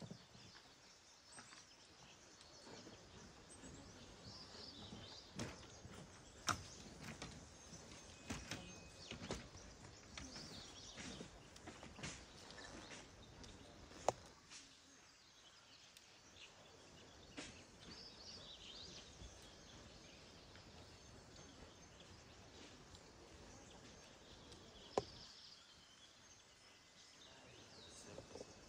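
Faint outdoor ambience with occasional high bird chirps and a few sharp clicks or knocks scattered through.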